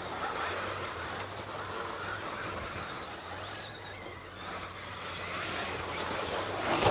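Radio-controlled stadium trucks racing on a dirt track: a steady haze of motor and tyre noise with faint rising and falling whines as the trucks speed up and slow down.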